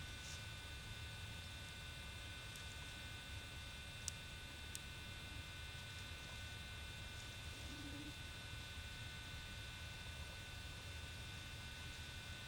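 A faint steady hum with several thin high whining tones over a low rumble, broken by two small clicks about half a second apart near the middle.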